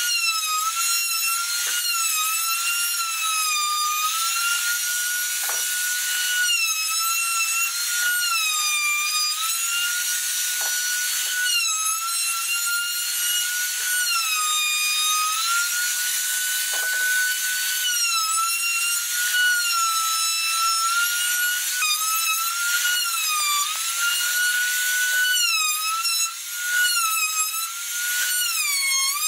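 Trim router with a bearing-guided roundover bit, a high whine, routing the edge of a pine board. The pitch sags each time the bit bites into the wood and then recovers, every second or two, more often near the end.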